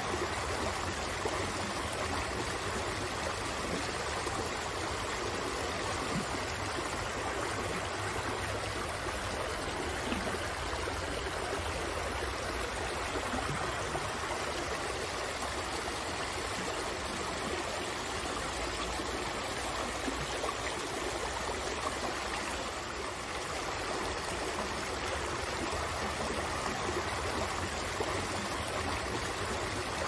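Shallow rocky stream running over stones, a steady babbling rush of water with no letup.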